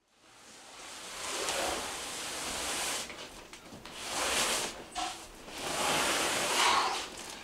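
A heavy cardboard box being shoved across a floor: a rough scraping noise that comes in three swells, each a second or two long.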